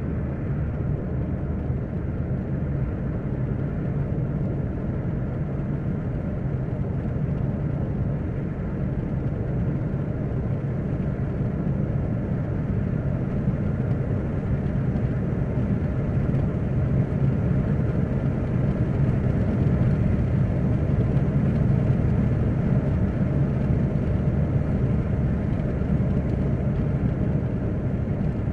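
Steady road noise inside the cabin of a car driving along a highway, a low rumble that grows a little louder in the second half.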